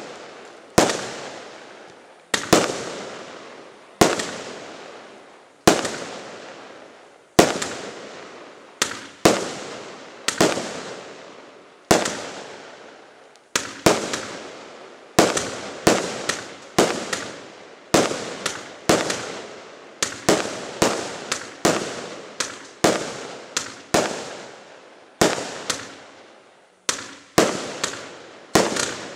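Fireworks firing a long series of aerial shots, each a sharp bang that echoes away. The shots come about one every second and a half at first, then quicken to more than one a second from about halfway through.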